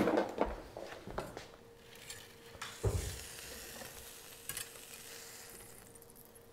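Rib-eye steak with a pepper crust sizzling faintly on a hot grill grate as metal spatulas scrape under it and lift it, with a few light knocks at first and a dull thump about three seconds in. The sizzle fades away toward the end.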